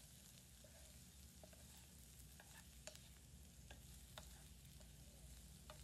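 Food frying in a pan: a faint, steady sizzle with scattered light pops and clicks.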